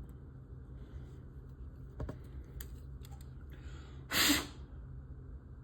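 Light clicks and taps of small plastic model parts and a tool being handled, with one short loud hiss-like burst about four seconds in, over a steady low hum.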